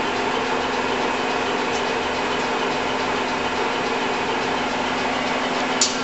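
Clausing Colchester 21-inch gap-bed lathe running under power: its 12.5 hp three-phase motor and geared headstock give a steady hum with a constant low tone. A single sharp click comes near the end.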